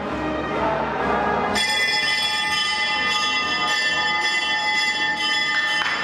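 Bells ringing, starting suddenly about a second and a half in with many steady high ringing tones, over the murmur of a crowd.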